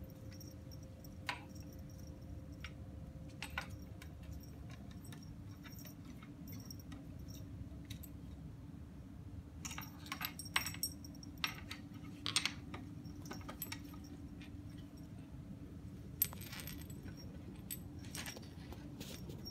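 Scattered light clicks, taps and small jingles of a kitten playing with a catnip toy on a tile floor, busiest about halfway through, over a faint steady hum.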